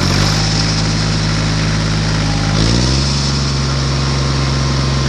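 Engine running steadily, its pitch shifting briefly about two and a half seconds in, then holding steady again; it cuts off abruptly.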